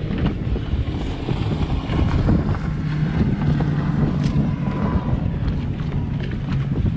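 Small boat's motor running steadily, with wind buffeting the microphone.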